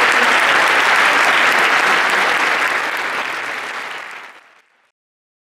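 Audience applauding, fading out toward the end.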